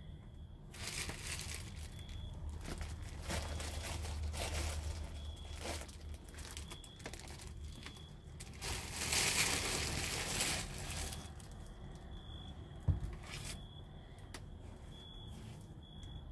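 Crinkling and rustling in several bursts, like paper or plastic being handled, loudest about nine to ten seconds in, with a single sharp knock a little later.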